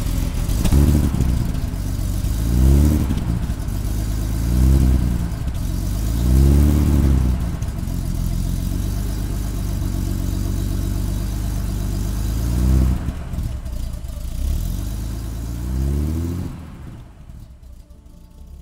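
1955 Mercedes-Benz 300SL Gullwing's fuel-injected three-litre M198 straight-six, just started and blipped about six times, each rev rising and falling, with steady running in between. The sound falls away near the end.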